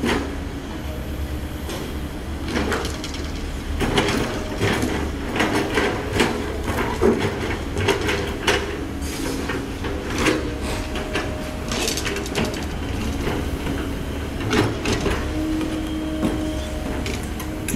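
Komatsu PC130 excavator's diesel engine running steadily under hydraulic load, with a run of scraping knocks and clanks from about four seconds in as the steel bucket digs through soil and broken concrete with rebar mesh.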